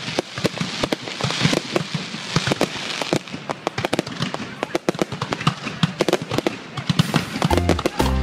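Fireworks going off: a rapid, irregular string of sharp bangs and pops, with a thick hissing crackle of sparks between about one and three seconds in. Music with low bass notes comes in near the end.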